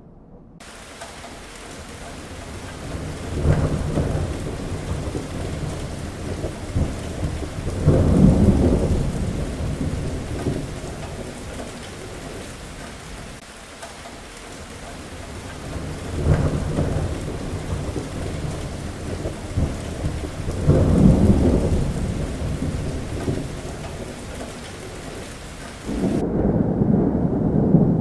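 Heavy rain falling steadily through a thunderstorm, with four deep rolls of thunder that swell and fade; the loudest come about eight and twenty-one seconds in. Near the end the rain hiss drops away, leaving a lower rumble.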